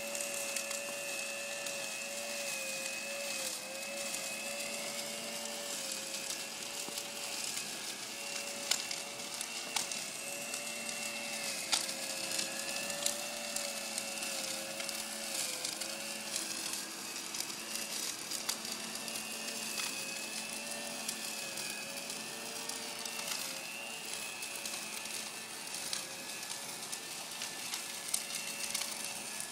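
Leaf blower running steadily, a constant whine whose pitch wavers slightly over a rush of air, as it blows peat moss.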